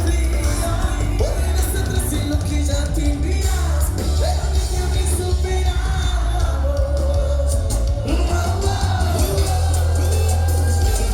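Live band music with a sung vocal over a heavy, steady bass line.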